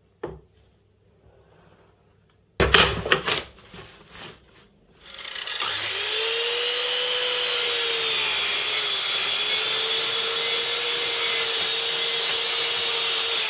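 A burst of loud knocks and clunks, then about five seconds in a mitre saw's motor spins up and runs steadily with a whine, its blade turning on a home-built hinged plywood glide arm.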